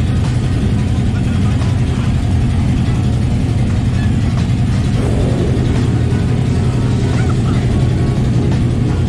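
Ferry's engines running in a steady low drone that fills the vehicle deck, with faint voices in the background.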